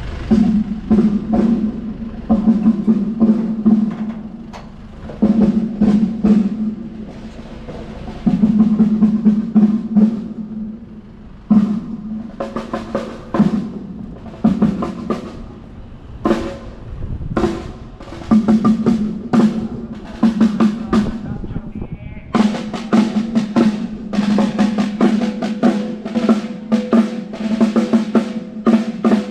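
Drum kit played during a sound check: groups of rapid snare-drum strokes and rolls with ringing drum hits, separated by short pauses.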